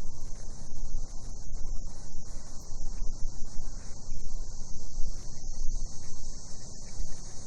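Night chorus of cicadas: a steady, unbroken high-pitched drone, over a constant low rumble.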